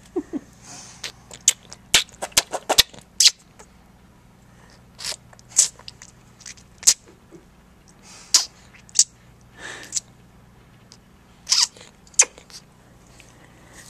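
A baby sucking on her own toes: a string of short, wet sucking clicks and smacks at irregular intervals, coming quickly one after another about two to three seconds in.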